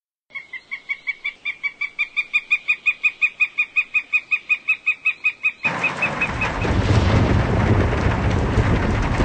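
A rapid run of short, high-pitched peeps, about five a second, gives way a little over halfway through to the steady rush of fast-flowing stream water foaming over a weir.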